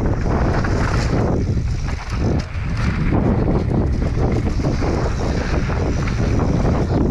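Wind rushing over an action camera's microphone as a mountain bike descends a dirt trail at speed, mixed with the tyres rolling over loose dirt. The rush eases for a moment about two seconds in.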